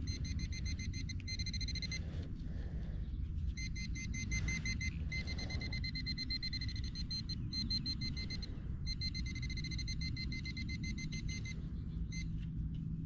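Handheld metal-detecting pinpointer sounding a steady high tone that cuts in and out in stretches of one to three seconds as it is probed through loose soil, signalling a metal target close to its tip. A low rumble runs underneath.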